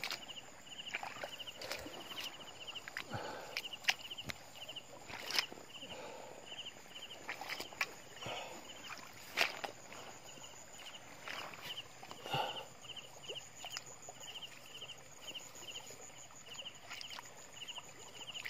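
Footsteps and rustling through wet grass and shallow water, with a few louder knocks or squelches. Behind them a cricket chirps steadily in short pulsed trills, about two a second.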